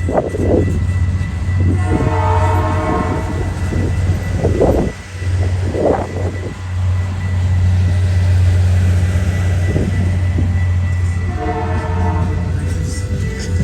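Diesel locomotive horn sounding twice, once about two seconds in and again near the end, over the steady low rumble of the passing train. A few dull thumps come through in between.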